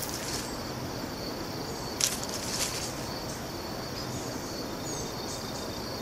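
Forest ambience: a steady high-pitched drone of insects over a faint hiss, with one short sharp sound about two seconds in.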